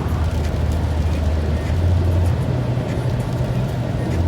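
Car driving at motorway speed on a wet road, a steady low drone with the hiss of tyres on the wet surface.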